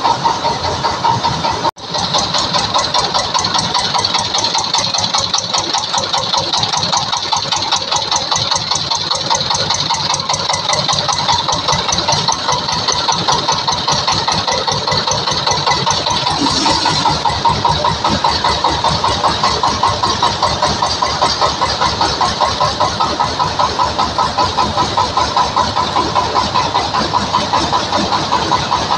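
Diesel engine of a mobile rice huller running steadily with an even, fast pulse, turning the huller through a set of V-belts. The sound cuts out for an instant about two seconds in.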